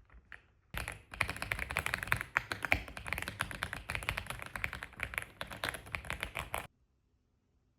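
Fast typing on a computer keyboard: a dense, continuous run of keystrokes that starts about a second in and cuts off abruptly about a second before the end.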